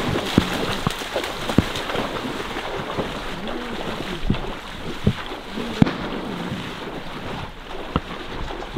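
Marsh water sloshing and splashing as someone wades through it, with short splashes and gurgles about once a second, and wind on the microphone.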